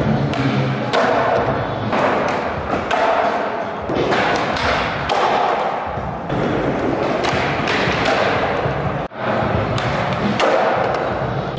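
Skateboard wheels rolling on a concrete floor, with knocks and thuds of the board popping and landing. The sound drops out abruptly for a moment about nine seconds in.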